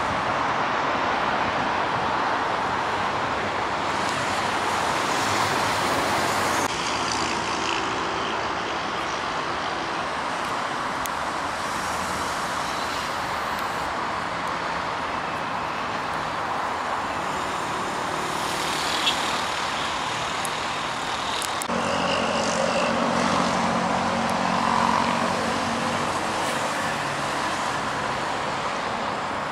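Steady road traffic noise, a continuous wash of tyres and engines from heavy city traffic. The background shifts abruptly twice, about 7 and 22 seconds in.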